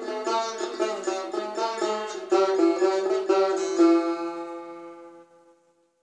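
Persian tar played solo in the Bayat-e Tork mode: a quick run of plucked notes, then about four seconds in a single note left to ring and fade away to silence.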